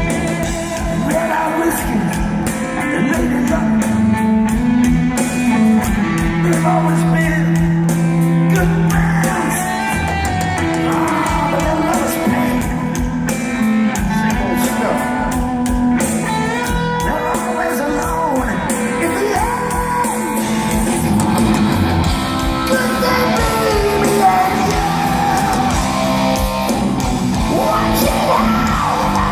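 Heavy metal band playing live in a large hall, heard from the crowd: electric guitars, bass and drums under a male lead vocal, steady and loud throughout.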